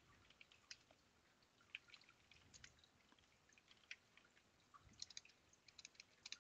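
Faint computer keyboard typing: scattered single key clicks, with a quicker run of several keystrokes about five seconds in.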